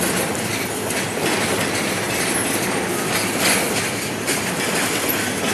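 Intermodal freight train cars carrying highway trailers rolling past at close range: a steady noise of steel wheels running on the rails.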